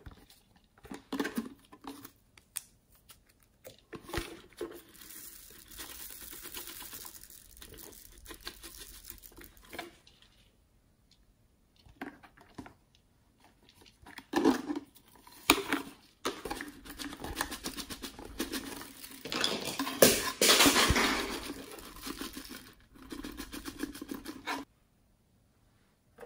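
Hands handling plastic character-shaped containers over a glass dish of slime: scattered plastic clicks and knocks against the glass, and two longer stretches of sticky, crackling noise, the louder one in the second half.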